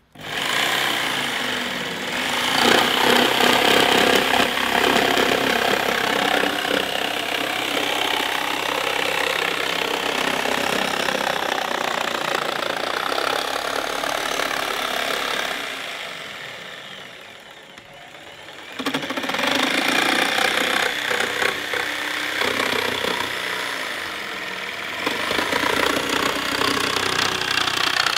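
Bosch PST 900 PEL corded jigsaw cutting through a wooden board, its blade chattering steadily in the wood. It starts suddenly, dies away about sixteen seconds in, and starts cutting again about three seconds later.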